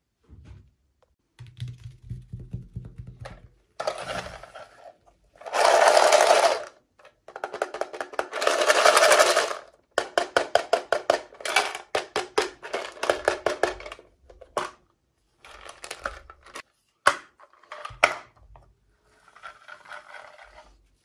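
Doll packaging being handled and opened: bursts of crinkling and tearing, then runs of rapid clicking and a few sharp snaps.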